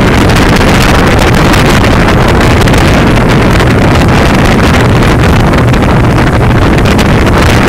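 Loud, steady wind rushing over the microphone on the bow of a motorboat under way, mixed with the boat's running noise.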